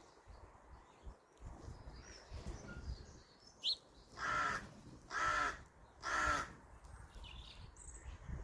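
A crow cawing three times, about a second apart, with a few short high chirps from small birds around it.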